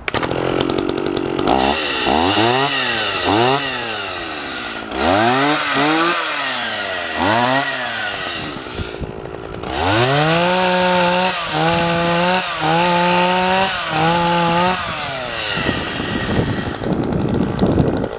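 Vintage John Deere 55EV two-stroke chainsaw running: it is blipped up and down about six times, then after a brief lull held at high revs in several long stretches with short drops between, and it settles back down near the end.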